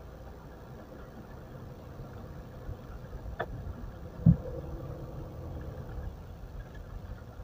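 Mitsubishi Pajero running slowly on a test drive, a low steady engine and road rumble heard from inside the car, with a faint click a little past three seconds and a single thump about four seconds in. No brake squeal is heard: after the brake pad work the screech is gone.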